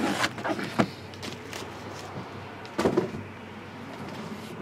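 Large shrink-wrapped 2015 Leaf 11x14 photograph boxes being slid and set down on a table. A plastic-wrap scrape near the start is followed by a few light knocks, with the loudest cluster about three seconds in.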